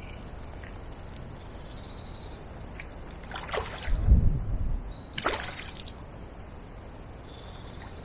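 A hooked chub splashing at the river surface twice, a few seconds in and again about two seconds later, over steady river flow. Between the splashes comes a loud low buffet on the microphone, and faint bird chirps come and go.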